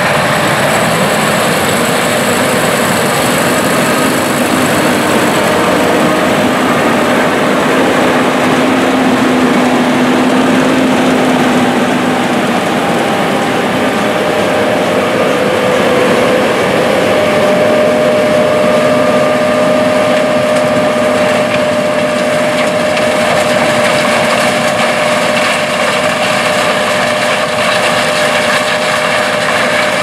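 John Deere S790 combine harvesting corn with a 12-row corn head: a loud, steady machine noise with faint held tones that come and go, one settling in a little past halfway.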